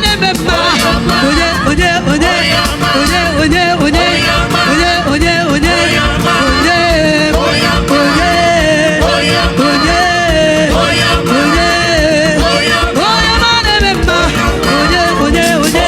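Live gospel praise music from a church band: a steady drum beat with sliding melodic lines over it.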